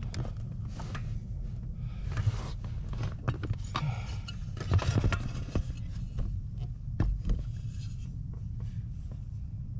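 Hand-tool work on a clutch pedal mount: intermittent scraping and rubbing with short knocks, busiest in the middle, over a steady low hum.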